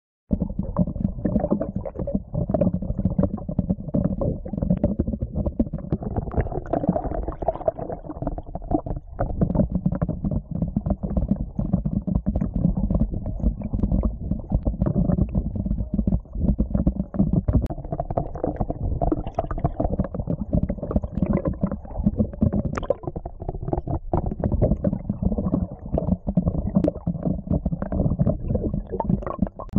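Muffled underwater rumble and water sloshing, heard through a camera's waterproof housing just below the surface. The sound is a continuous, uneven low churning with no clear rhythm.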